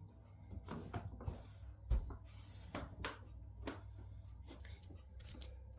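Washing being handled and loaded into a washing machine: fabric rustling with a string of knocks and clicks, the loudest a dull thump about two seconds in.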